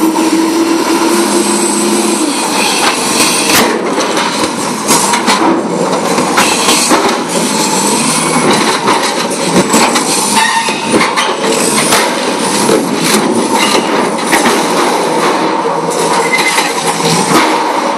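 Steel pipes clanking, knocking and scraping against one another and the steel railcar walls as a Pettibone loader's grapple lifts them out. The loader's engine runs steadily underneath, with occasional high metal squeals.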